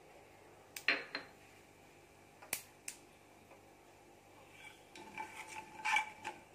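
A few sharp clicks in the first three seconds, then a wooden spatula stirring mustard seeds in oil in a metal pan from about four and a half seconds in, scraping and knocking so that the pan rings.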